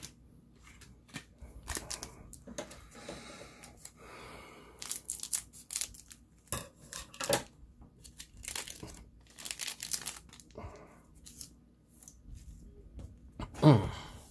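Foil Bakugan trading-card booster pack being torn open by hand, with irregular rips and wrapper crinkling, then the cards being handled. One short, louder, low sound near the end.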